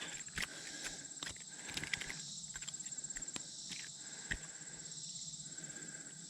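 Insects keep up a steady high buzz, with a fainter on-and-off trill below it. Scattered sharp clicks and taps come through it, the clearest about half a second in and about four seconds in.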